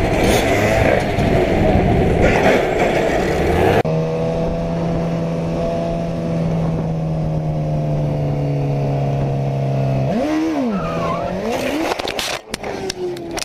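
Motorcycle engines heard from a helmet camera: first a dirt bike running hard with wind noise, then, after a cut, a sport bike holding steady revs. About ten seconds in its engine note shoots up and falls sharply, followed by a few sharp knocks and scrapes, as the bike goes down.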